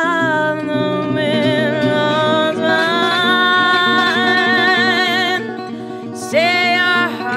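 A woman singing long held notes with a wide vibrato over plucked guitar accompaniment. Near the end her voice breaks off briefly, then comes in again on a new note that swoops up into pitch.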